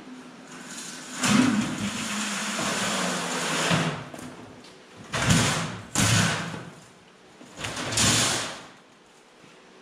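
A large sheet of diamond-plate sheet metal being slid and scraped across a steel frame, one long scrape followed by three shorter scraping thumps as it is shifted into place.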